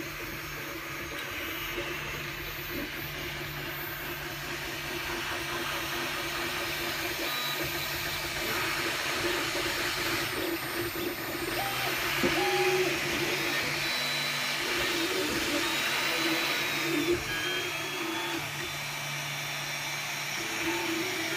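3D printer running: a steady whir of fans with motor tones that step and glide in pitch as the print head moves, busier in the middle.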